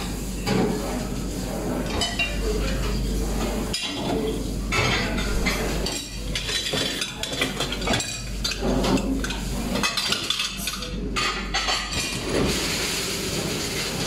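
Ceramic plates and bowls clinking and knocking as they are taken off a dishwasher rack, over the steady running noise of a single-tank conveyor dishwasher.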